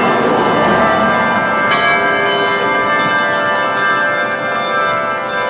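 Church bells ringing, their tones hanging and overlapping. A fresh stroke rings out about two seconds in.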